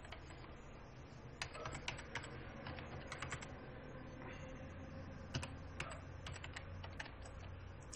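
Keystrokes on a computer keyboard: irregular bursts of typing that start about a second and a half in and stop about seven seconds in, over a faint steady low hum.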